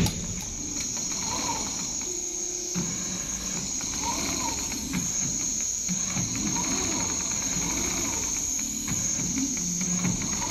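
Richpeace large-format CNC sewing machine stitching: a steady high whine with a pitch that rises and falls over and over as the head and frame move. A sharp knock comes right at the start.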